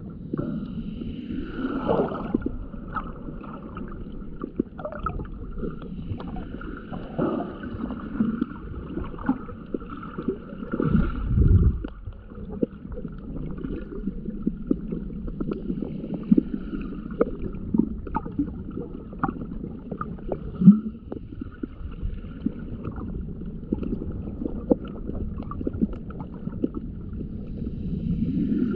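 Shallow seawater heard through an underwater camera: a muffled, continuous sloshing and gurgling with many small scattered clicks, and a louder low rush about eleven seconds in.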